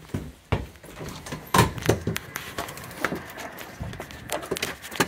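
A house door and a screen door being opened on the way outside: a heavy thump about a second and a half in, then several sharper clicks and knocks of latch and frame.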